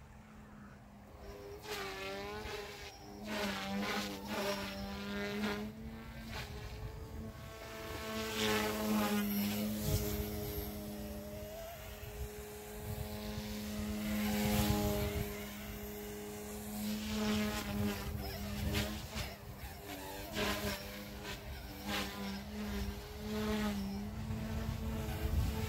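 Goosky S1 micro RC helicopter in flight: a steady, insect-like buzzing whine from its motors and rotors that rises and falls in pitch as the throttle changes.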